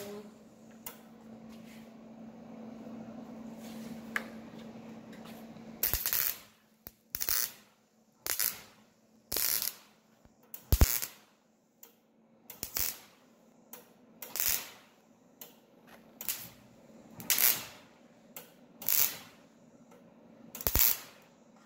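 Eastwood MIG welder arc crackling in a series of short tack welds on thin sheet steel: about a dozen bursts, each under half a second, roughly one every second or two. These follow a steady low hum in the first six seconds.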